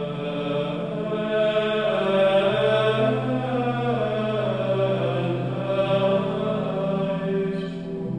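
Slow sacred choral chant: several voices holding long notes in chords that shift step by step, with a lower part coming in about two and a half seconds in.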